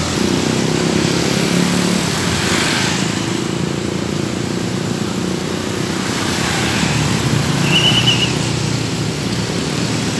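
Diesel engines of large tour buses running at low revs as the buses move off, a steady low drone, with a brief high chirp about eight seconds in.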